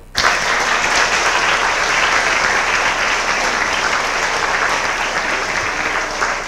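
Audience applauding, breaking out suddenly just after the start and easing off slightly toward the end.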